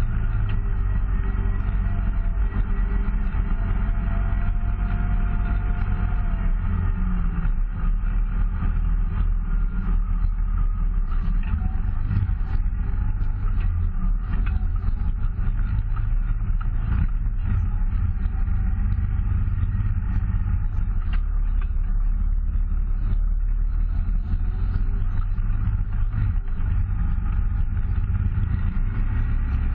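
Off-road vehicle engine running steadily at low trail speed, a constant low drone, with scattered short knocks and rattles as it rolls over the rough, rocky trail.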